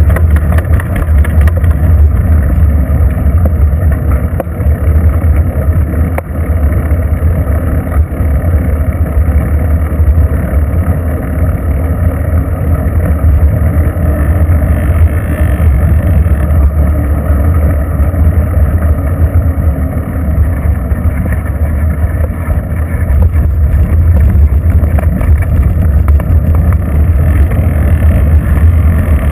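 Loud, steady low rumble of riding noise picked up by a bicycle-mounted GoPro camera's microphone, with wind buffeting and the bike's vibration.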